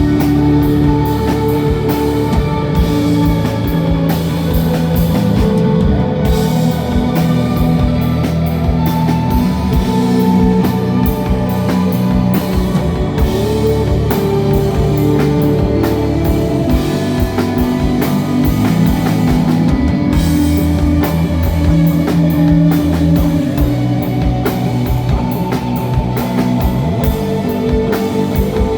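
Live instrumental rock band playing: a drum kit keeping a steady beat under electric guitar holding long, sustained notes.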